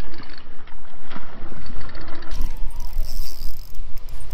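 Wind buffeting the microphone in a steady low rumble, with splashing as a hooked smallmouth bass thrashes at the surface near the start.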